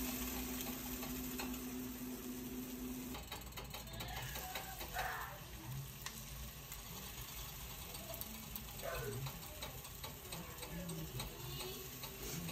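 Pancake batter sizzling in an enameled cast-iron skillet, with spatula scrapes and small clicks and taps of a metal batter scoop against the pan. A low steady hum cuts off about three seconds in.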